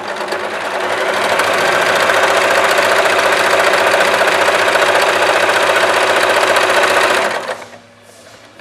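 Usha Janome Allure electric sewing machine running steadily as it sews a narrow zigzag (satin stitch) on fabric. It speeds up over the first second or so and stops about seven and a half seconds in.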